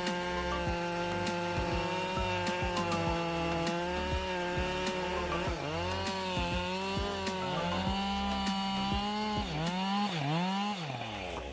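Chainsaw engine running at high revs. Its pitch dips and recovers several times, twice in quick succession near the end, as if loaded in a cut, then it cuts off just before the end. Scattered sharp clicks run throughout.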